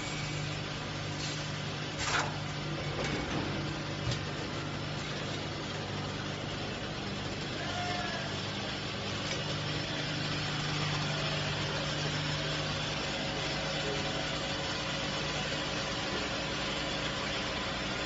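Automatic liquid bottle filling line and its conveyor running: a steady mechanical hum with a held low tone, broken by a few sharp clicks about two and four seconds in.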